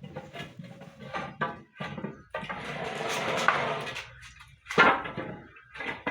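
Knocks and scraping of 2-by-2 timber being handled and worked, with a longer scraping stretch of about two seconds in the middle and a sharp knock about a second before the end.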